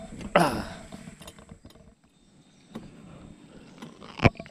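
Fishing gear being handled in a small boat: a short falling vocal cry about half a second in, then a quiet stretch with light clicks, and a single sharp knock near the end.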